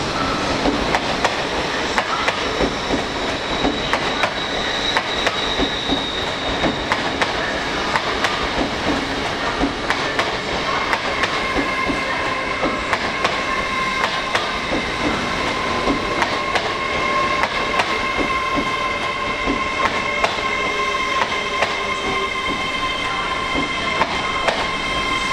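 A train rolling over rail joints with frequent wheel clicks. About ten seconds in, a high steady squeal from the wheels joins in and holds.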